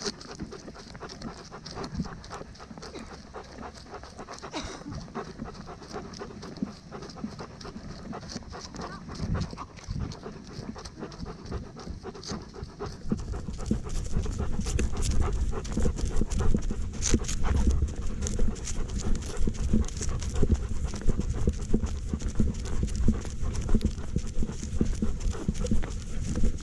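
A dog panting close to the microphone over a quick patter of its paw steps, from a camera the dog carries. It all gets louder about halfway through, with a low rumble under it.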